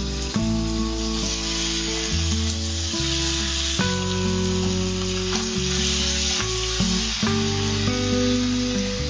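Marinated mutton liver sizzling in hot oil as it is tipped into a frying pan of fried shallots, with a spatula stirring it round. Background music with sustained chords runs underneath.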